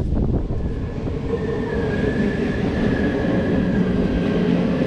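A vehicle running by: a low rumble with a steady whine in several tones that drift slightly in pitch.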